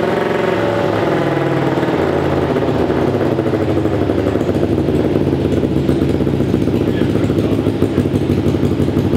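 Kawasaki Ninja 250R parallel-twin four-stroke engine running through an aftermarket DG muffler, freshly started. It revs briefly about a second in, then idles steadily.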